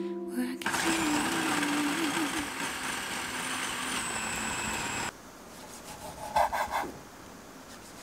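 Kenwood food processor motor running with a steady whine as it blends sun-dried tomato pesto, cutting off abruptly about five seconds in. Near the end, a quick run of knife cuts through cherry tomatoes on a wooden cutting board.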